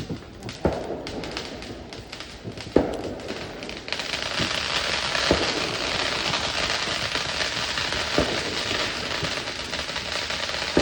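Fireworks going off: single sharp bangs every two to three seconds, and from about four seconds in a dense, steady crackle of many small reports.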